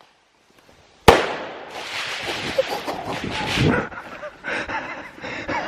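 A firework rocket goes off with one loud, sharp bang about a second in, followed by a few seconds of rushing noise and crackle. Geese start honking at the very end.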